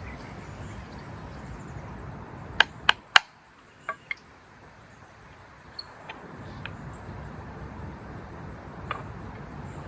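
Three loud, sharp knocks in quick succession about two and a half seconds in, then a few fainter clicks, over a steady low background noise.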